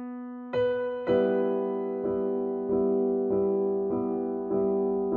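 Background piano music: soft sustained chords struck about every half second or so, each ringing and fading before the next.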